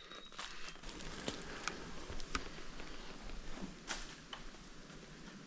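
Slow, soft footsteps in dry leaf litter and twigs, with scattered sharp crackles and twig snaps at irregular moments.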